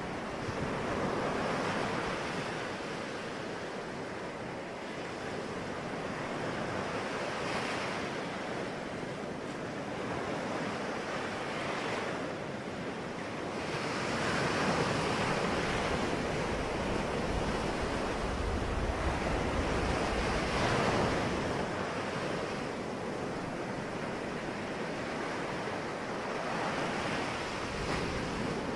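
Ocean waves breaking and washing on the shore in a steady surf, each swell rising and falling every few seconds, with a low rumble of wind on the microphone near the middle.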